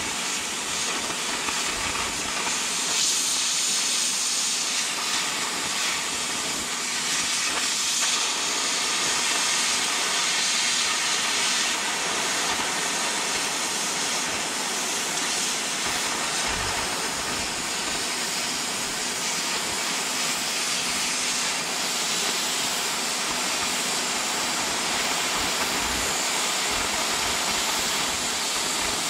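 Oxy-acetylene cutting torch hissing steadily as its jet of oxygen cuts through a steel plate.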